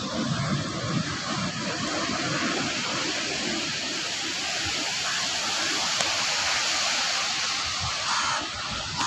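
Sea surf breaking and washing up a sandy beach in a steady hiss, with some wind buffeting the microphone in the first moment.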